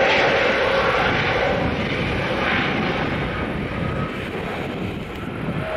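Twin jet engines of a Lufthansa Airbus A320-family airliner at takeoff thrust during the takeoff roll: a steady roar with a faint hum in it, slowly fading as the jet accelerates away.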